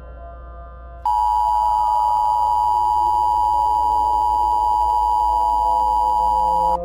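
Emergency Alert System attention signal: a loud, steady two-tone beep that starts about a second in and cuts off suddenly near the end, over a faint low drone. It heralds a missile-threat warning.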